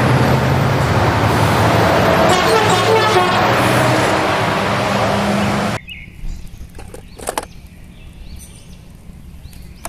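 Scania articulated lorry passing close by on a road: diesel engine and tyre noise, loud and steady, cutting off suddenly about six seconds in. After that only a few light clicks.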